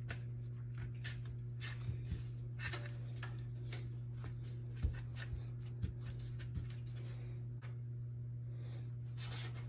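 A steady low hum, with scattered soft taps and knocks from handling in the kitchen, and a brief scrape or rustle near the end.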